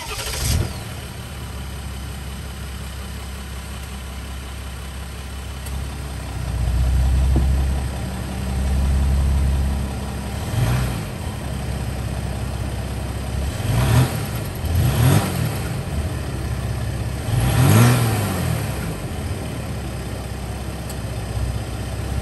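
2021 Jeep Wrangler JL's 3.0-litre EcoDiesel V6 turbodiesel cold-starting through a straight pipe in place of the muffler. It cranks briefly and catches, settles into idle, and in the second half is revved in four quick throttle blips, each rising and falling in pitch.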